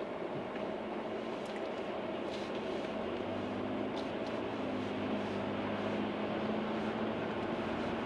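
Steady engine and tyre noise of traffic on a wet street, heard from inside a car with a city bus running close alongside. A deeper engine hum comes in for a few seconds in the middle.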